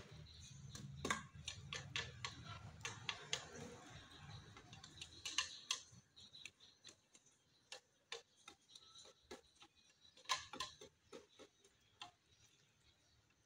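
A cat chewing and eating from a plate: faint, irregular clicks and smacks of its mouth on the food, coming thick at first and sparser in the second half, over a low rumble that fades about halfway through.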